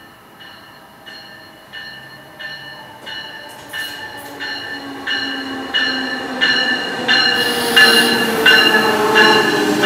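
Amtrak ACS-64 electric locomotive arriving at a station platform, its bell ringing about one and a half strikes a second and getting steadily louder as it approaches. Under the bell a low whine falls in pitch as the train slows, and a hiss comes in near the end as it draws alongside.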